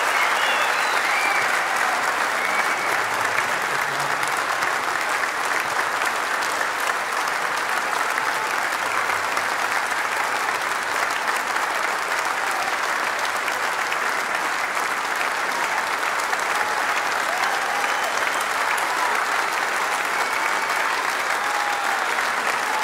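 Large concert audience applauding steadily, a dense clapping that holds its level throughout, with a few short calls rising above it.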